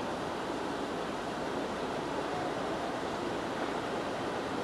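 Steady rushing outdoor background noise, even in level, with no distinct event.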